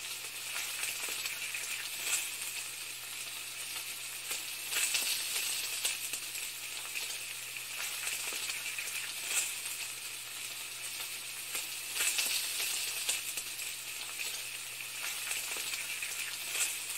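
A steady crackling sizzle with scattered small pops, over a faint low hum.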